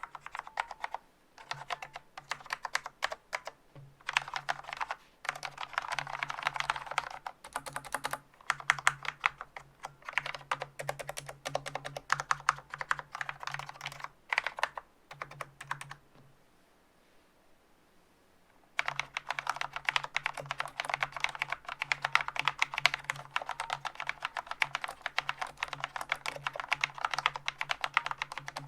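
Fast typing on a Corsair K70 MK.2 Low Profile mechanical keyboard with Cherry MX Low Profile Speed (silver) linear switches: quick runs of light key clacks in bursts, stopping for a couple of seconds a little past the middle. The switches are unlubricated, so the springs ping, and the stabilizers give a faint wire rattle.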